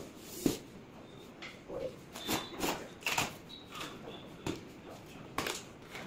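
Large cardboard TV carton being handled: a sharp knock as it is set upright about half a second in, then a string of scrapes, rustles and knocks as the top is cut open with a box cutter and the flaps are pulled apart.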